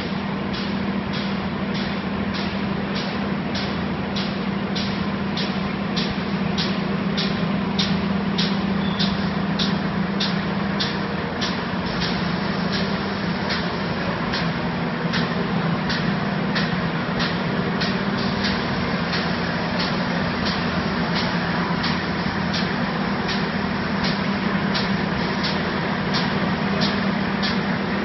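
CFJG-150 spiral paper tube winding machine running: a steady mechanical hum with a regular sharp tick about one and a half times a second.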